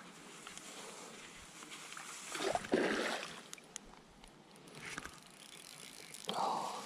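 Fishing reel being worked while a hooked barbel is played: mechanical ticking and handling noise at the reel. Two louder rushes of noise come about two and a half seconds in and again near the end.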